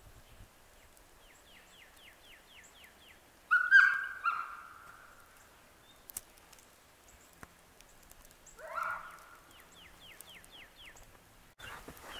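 Bird calls: a quick series of short, falling notes, about four a second, heard twice, with two louder calls in between, one about three and a half seconds in and a rising one about nine seconds in.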